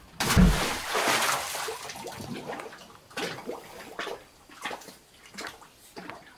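A fishing magnet on a rope hits the water at the bottom of a well with a loud splash and a deep plop, which trails off over the next couple of seconds. Smaller splashes and drips follow about once a second.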